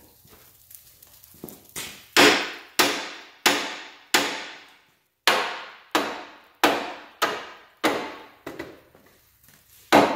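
A hammer beating on a pickup's steel bumper bracket, about a dozen ringing blows at a steady pace of one to two a second, starting about two seconds in. The bracket has been torch-cut to knock the factory bumper off, but it is not quite cut through.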